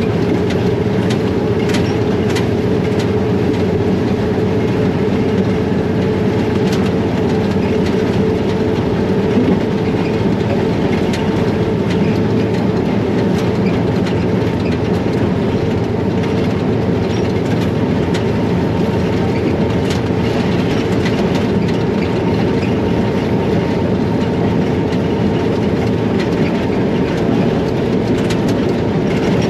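ALCO diesel-electric locomotive running, heard from inside its cab: a steady engine drone with the wheels clicking over the rail joints.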